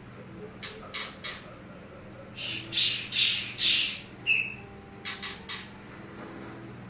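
A bird giving short, harsh squawking calls, with a run of several about two and a half to four seconds in and scattered shorter chirps around them, over a low steady hum.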